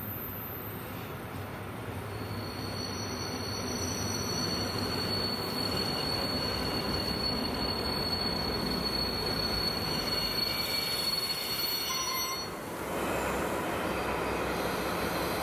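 TT-scale model train of Reko coaches running along the layout track: a steady rolling rumble of small wheels on rails, with a thin high-pitched whine that stops about twelve seconds in, after which the rolling noise grows a little louder.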